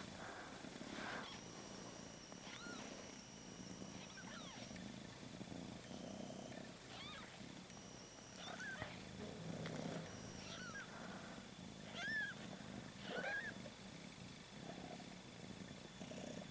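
Mother cat in labour purring faintly, with short high-pitched squeaky mews at intervals; the clearest come about twelve and thirteen seconds in.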